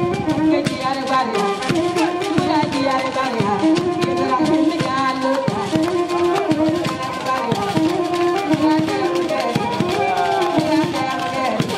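Live music: drums keep a steady beat under a repeating melodic line.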